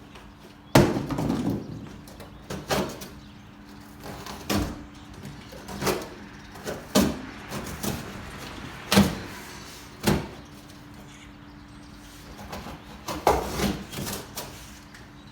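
Irregular knocks and clunks, about a dozen in all, from a new lawn mower and its packaging being handled while it is unboxed, over a faint steady hum.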